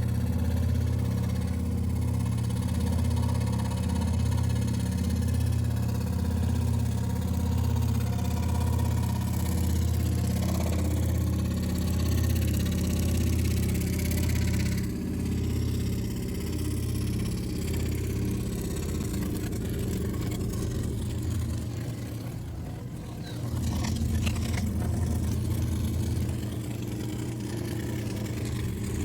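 Steady low machine hum with an even pulsing, like a motor or engine running. It changes and dips briefly about two-thirds of the way through, then carries on.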